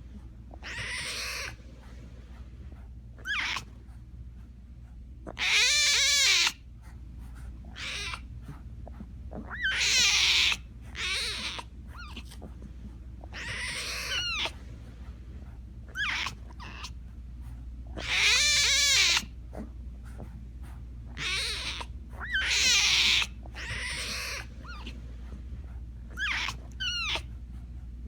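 Tiger cub crying: a string of pitched calls, some short and some about a second long, repeating every one to three seconds.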